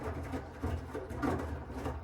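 Miele W1 front-loading washing machine running its wash: a steady low motor hum under repeated swishing surges as the drum tumbles the wet laundry and water.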